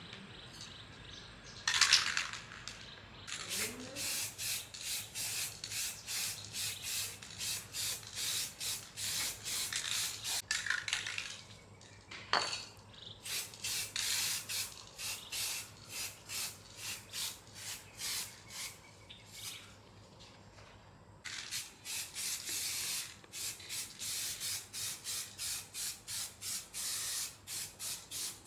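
Rhythmic hand rubbing strokes on a part, about two a second, like sanding or scrubbing back and forth. A short clatter comes near the start, and the strokes pause for about a second some two-thirds of the way through.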